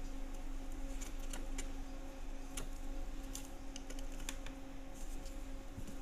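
Light, irregular plastic clicks and taps of hands handling a control circuit board and fitting a wire connector to it, over a faint steady hum.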